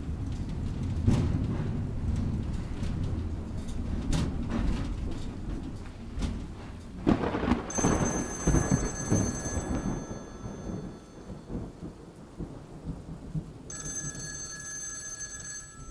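Steady rain and rolling thunder, with a louder peal of thunder about seven seconds in. A telephone rings twice in the second half, each ring about two seconds long, with a few seconds' pause between them.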